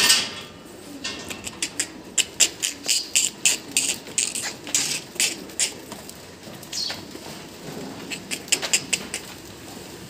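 Hooves of a crowd of goats clattering and shuffling on a hard floor: many sharp, irregular clicks and knocks, several a second, thinning out for a moment in the middle.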